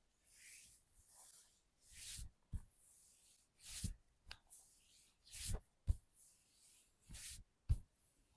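Hands rubbing and sliding over skin in repeated swishing strokes, about one a second, with a few short soft thumps among them.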